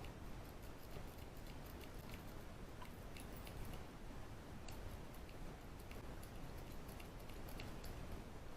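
Snake rake worked in and out of a Brinks 4-pin padlock's keyway, making faint, irregular light metallic clicks and scrapes as it moves over the pin stacks.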